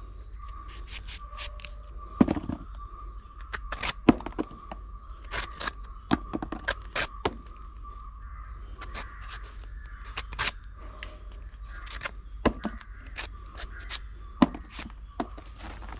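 A large kitchen knife cutting and trimming fresh jackfruit: irregular sharp clicks, knocks and scrapes as the blade goes through rind and flesh, a few much louder than the rest. A steady thin tone runs underneath.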